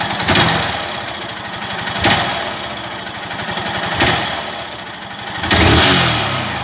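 Honda CG 150 Fan's single-cylinder engine running as the motorcycle is ridden, with surges of revs about every two seconds and a rising rev near the end. The noise under load and on gear changes comes from broken springs in the balancer-shaft gear behind the clutch, a knock often mistaken for piston or connecting-rod slap.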